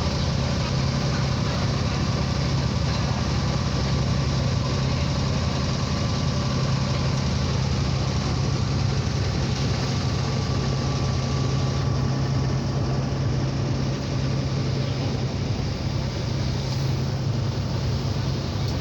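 A boat's engine running steadily under way, a constant low hum over a steady rushing noise.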